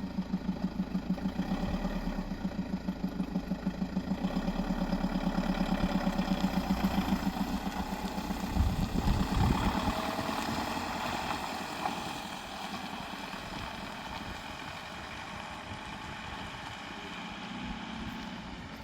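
Campervan engine turning over with a steady rhythmic pulse for several seconds. A few knocks come about eight or nine seconds in, and it then settles to running steadily.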